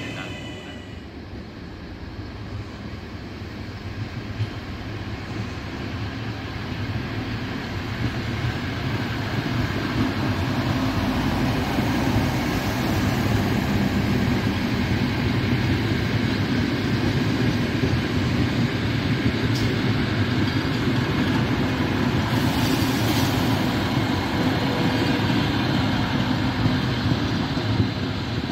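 A train of old diesel railcars, led by an ALn 668-type unit, passing along a station track. The engine and wheel rumble grows over the first several seconds and then holds steady, with a brief high hiss about two-thirds of the way through.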